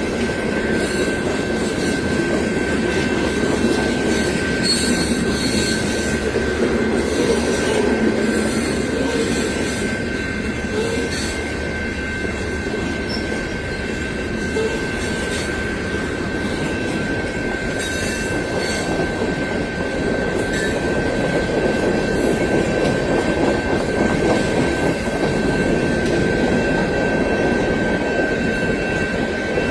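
Long CSX freight train rolling by: a steady rumble of railcars, with wheel clicks and a steady high-pitched tone, typical of wheel squeal, held throughout.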